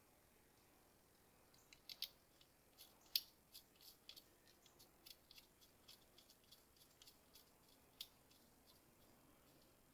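Faint, irregular clicks and light ticking from small hose and connector parts being handled during engine reassembly, with a sharper click a little past three seconds in and another at about eight seconds.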